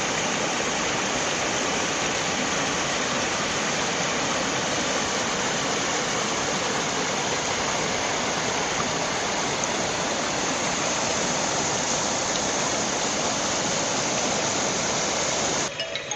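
Floodwater rushing in a muddy torrent: a steady, even rush of water that drops away suddenly near the end.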